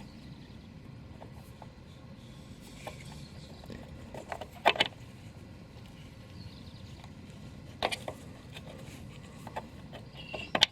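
Scattered small clicks and light knocks of parts and tools being handled, over a low steady hum. Two louder bursts of sharp clicking come about five and eight seconds in.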